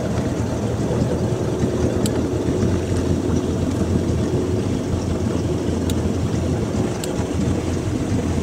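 Tow boat's engine running steadily at low idle, a constant low hum heard from aboard the boat.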